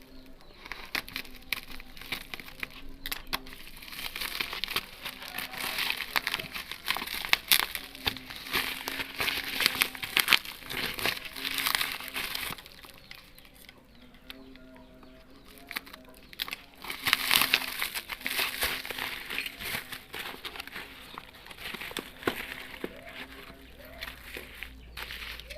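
Packaging of a vape mod crinkling and crackling as it is unwrapped and handled, in bouts of a few seconds with a quieter stretch around the middle.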